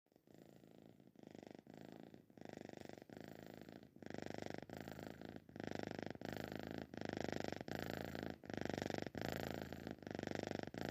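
A domestic cat's rhythmic purring rumble, heard as a pulse with each breath in and out, growing louder over the first several seconds; the uploader takes it for the cat snoring.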